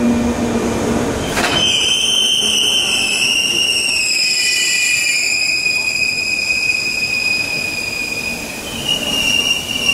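Electric commuter train at a station: a sharp clank about a second and a half in, then a loud high-pitched squeal of several tones gliding slowly down, jumping higher near the end.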